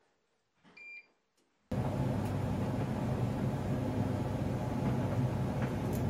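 A short electronic beep from the Bosch heat pump tumble dryer's control panel as a button is pressed. About two seconds in, a loud, steady running sound starts abruptly: the dryer's motor humming as the drum tumbles the laundry.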